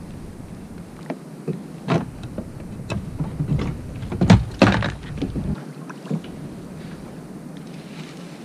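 Scattered clicks and knocks of fishing rod and tackle being handled on a plastic sit-on-top kayak, loudest in a pair of knocks about halfway through.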